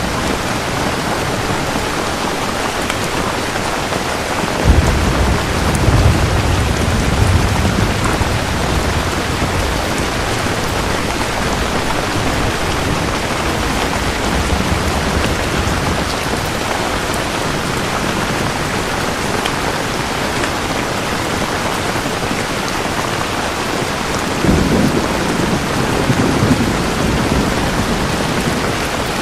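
Steady, heavy rainfall with two rolls of thunder. The first begins suddenly about five seconds in, and the second comes near the end, each rumbling for a few seconds.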